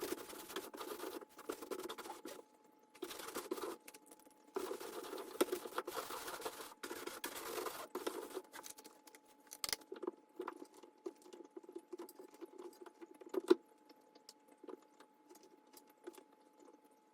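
Stiff scrub brush scrubbing the rubber door seal of a washing machine, in runs of rapid strokes with short pauses, then dying down to a few light taps and clicks after about eight seconds.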